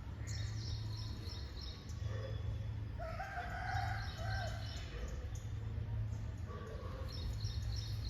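A rooster crowing once, about three seconds in, among short high chirps from small birds repeated in several groups.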